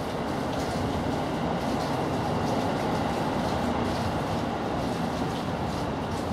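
Steady, even low rumble of outdoor background noise, with faint light rustles over it.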